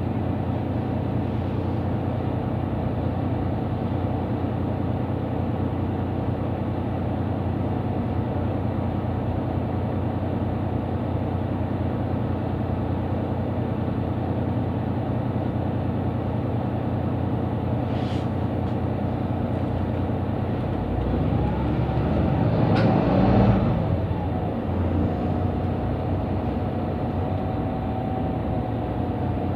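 Mercedes-Benz Citaro C2 city bus running, heard from inside the passenger cabin as a steady engine hum. There is a click about eighteen seconds in, and the sound swells for a few seconds from about twenty-one seconds in.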